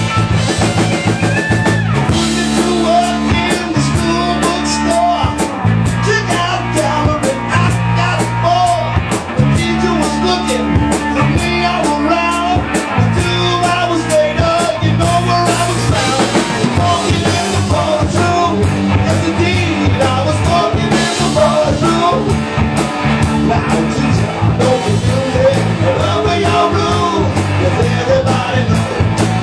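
Live rock band playing rock and roll: a steady drum-kit beat under electric bass and electric guitar, with some singing.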